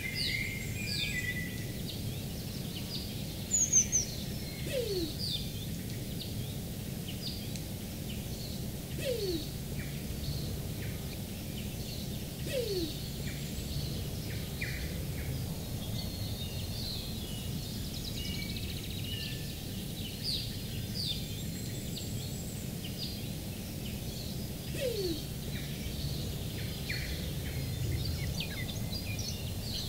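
New Zealand wood pigeon (kererū) giving a faint, low single coo that falls in pitch, four times: three in the first half and one near the end. Many brief high chirps of other small birds sound throughout, the loudest just before 4 s, over steady low background noise.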